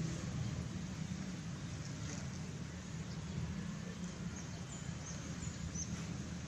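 Outdoor ambience: a steady low rumble of background noise, with a few faint high bird chirps about two-thirds of the way through.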